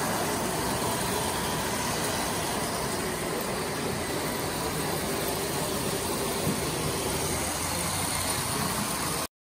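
Model trains running around a layout: a steady, even rolling rumble of toy train wheels on metal track. It cuts off suddenly just before the end.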